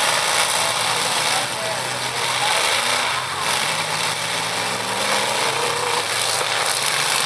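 Demolition derby cars' engines running and revving over a dense, steady rushing noise, with the pitch of the engines rising and falling.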